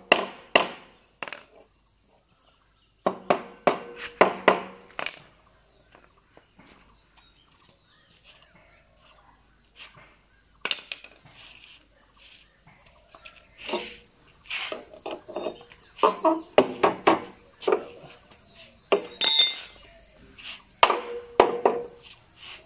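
Hammer blows on wood in short runs of several sharp strikes with pauses between, over a steady shrill insect chorus.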